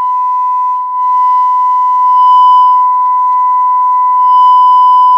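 Steady 1 kHz sine test tone played through the left channel of a Luxman R-5030 receiver's amplifier, with faint overtones that come and go: a sign of slight distortion on that channel.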